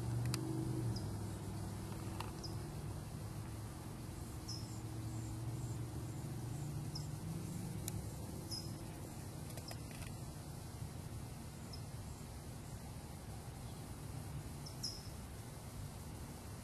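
Outdoor background sound: a low, steady hum with short, high chirps coming at irregular intervals.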